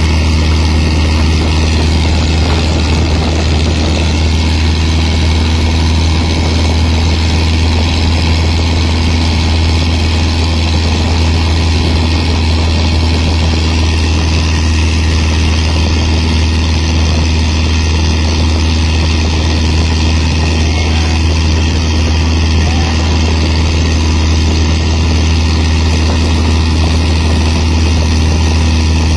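Fishing boat's engine running steadily under way, a loud, constant low drone with no change in speed, over a steady rush of water along the hull.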